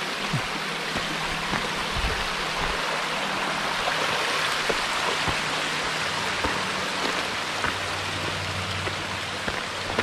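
Steady rushing of the Wedenbach, a small tufa stream running over little cascades, with a few faint short knocks.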